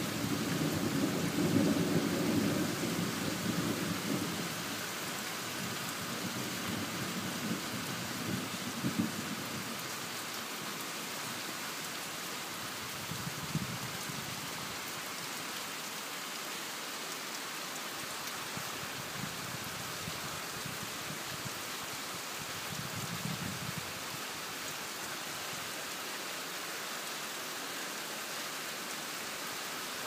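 Heavy rain falling steadily on foliage and open ground, with low rumbles of thunder, strongest in the first few seconds and returning briefly a few times later.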